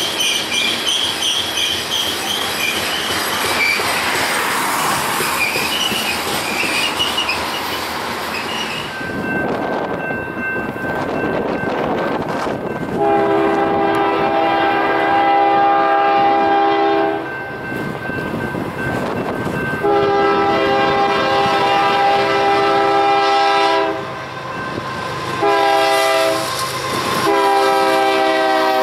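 A loaded coal train rolls past, its steel wheels clattering and squealing on the rails. Then an approaching BNSF freight locomotive's air horn sounds the grade-crossing signal, long, long, short, long, with its pitch dropping in the last note as the locomotive passes.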